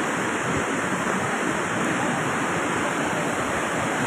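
Muddy river in flash flood rushing through its channel: a steady, dense wash of water noise.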